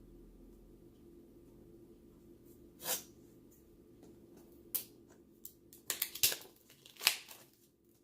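Packaging of a smartwatch box being opened by hand: several short rustling, tearing noises starting about three seconds in, over a low steady hum.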